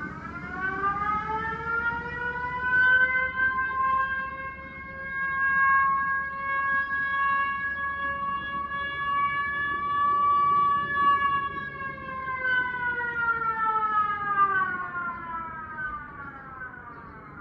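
Outdoor municipal disaster-warning siren sounding one long wail, the signal for a moment of silence: it rises in pitch over the first few seconds, holds steady, and slides back down near the end, its loudness swelling and fading as it carries.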